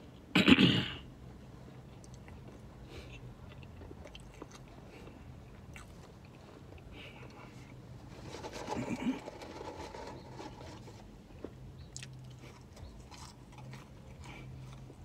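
Close-up biting and chewing of a hamburger, with small crunching mouth sounds. There is one brief loud burst about half a second in and a short vocal murmur near the middle.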